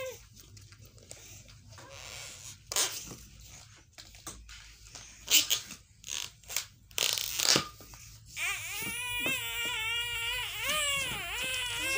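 A long latex modelling balloon being swung and batted about, giving a string of sharp rubbery knocks and swishes, the loudest about five seconds in. For the last few seconds a toddler whines in a high, wavering voice.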